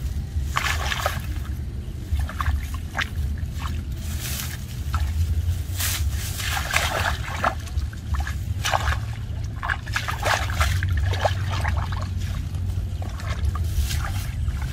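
Shallow muddy water splashing and sloshing in irregular short bursts, over a steady low rumble.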